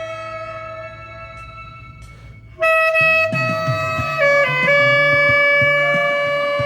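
Saxophone playing a slow trot melody over a backing track: a long held note fades away, then about two and a half seconds in a loud new held note begins as the accompaniment comes back in, the melody stepping quickly down and back before settling on another long note.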